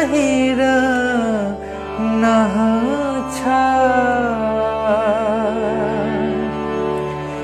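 Bengali kirtan devotional song: a single voice sings long, sliding, ornamented notes over a steady drone, with a wavering vibrato past the middle.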